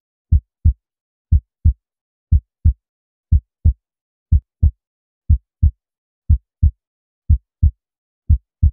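Heartbeat sound effect: low lub-dub thumps in pairs, about one pair a second, repeating evenly.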